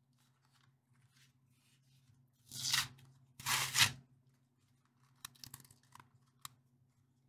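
Cardboard backing of a trading-card blister pack being torn by hand. There are two loud rips, about two and a half and three and a half seconds in, then light crinkling and clicking of the card and plastic.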